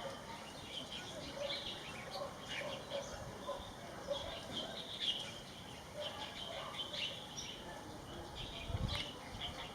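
Small birds calling: many short, high chirps scattered throughout, with a soft low bump near the end.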